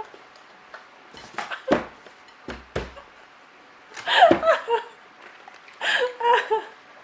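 A person laughing in two short bursts about two seconds apart, after a few dull knocks.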